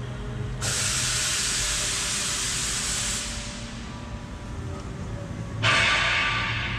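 Two loud bursts of hissing over a steady low hum. The first starts abruptly and runs about two and a half seconds. The second starts near the end and fades.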